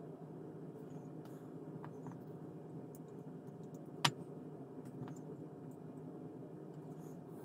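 Steady low hum with faint light clicks of small plastic model-kit parts being handled, and one sharp click about four seconds in.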